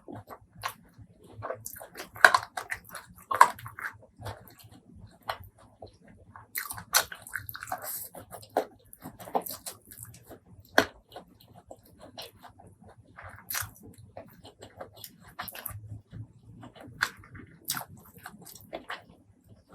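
Close-miked eating sounds: chewing and biting, with a steady irregular run of short, sharp, wet clicks and crunches from the mouth and food.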